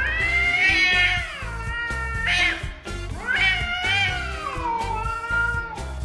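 A cat yowling angrily in a standoff with another cat: two long, wavering yowls with a short one between, over background music.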